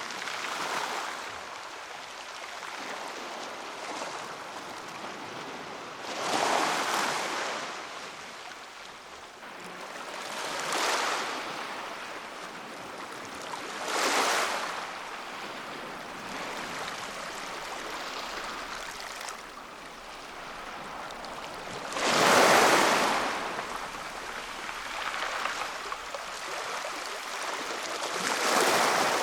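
Black Sea waves washing onto the shore over a steady hiss of surf, with a wave breaking every few seconds; the biggest breaks about two-thirds of the way through.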